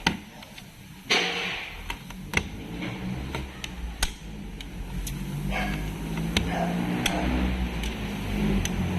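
Sharp metallic clicks and clinks of hand tools on a CVT transmission being worked on, spaced irregularly, over a low steady hum that grows louder from about halfway.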